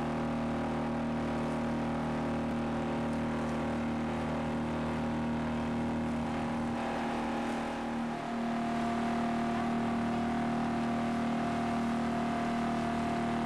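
Motorboat engine running steadily with a constant drone, dipping briefly about eight seconds in and then settling at a slightly different pitch.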